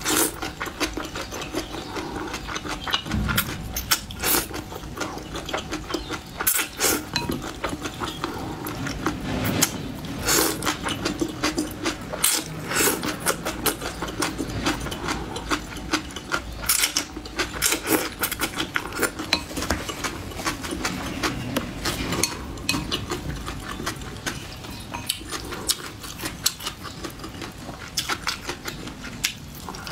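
Close-miked eating of noodles: a quick, continuous run of wet slurps, sucks and chewing clicks, with a few louder slurps along the way.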